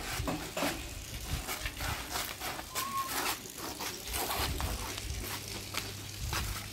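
Irregular knocks, rattles and scrapes of a metal-framed wire-mesh panel being lifted down and moved by hand, with a brief squeak about three seconds in.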